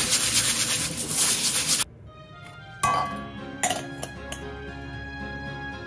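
Tap water running onto rice in a stainless steel mesh strainer, cutting off suddenly just under two seconds in. Then a couple of sharp metal clinks as the strainer is set down on a steel bowl, over soft background music.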